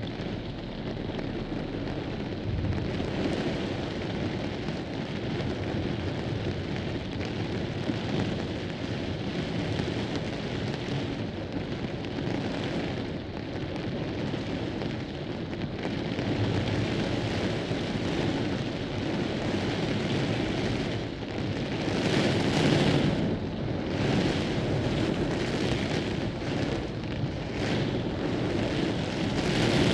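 Heavy rain and gusting wind of a severe thunderstorm, a steady dense downpour that swells louder in gusts about two-thirds of the way through.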